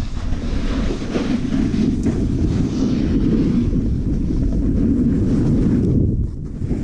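Wind buffeting the microphone: a loud, steady low rumble that briefly drops away near the end.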